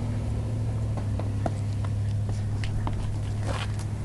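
Car engine idling, a steady low hum, with scattered light clicks and knocks.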